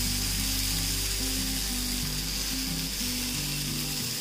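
Chicken tikka skewers sizzling in oil on a hot nonstick tawa, with background music playing over them.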